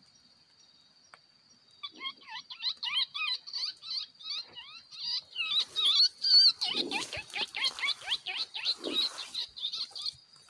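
An animal calling in rapid chattering runs of short, pitch-bending notes, many a second, starting about two seconds in and stopping shortly before the end. Under it runs a steady high insect drone.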